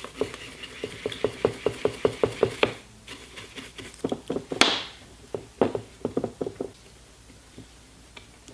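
Stiff bristle brush scrubbing the inside of a Nissan CR14DE throttle body to clean out gunk: a quick run of clicking strokes, about five a second, then one sharp clack about four and a half seconds in and a few scattered strokes.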